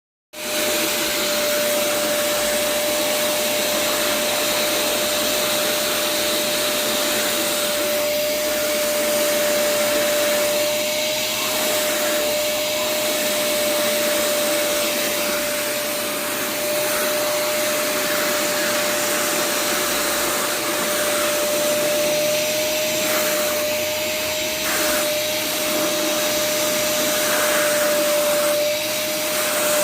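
Vacuum cleaner running steadily: a constant motor whine over rushing air. It starts abruptly just as the sound begins.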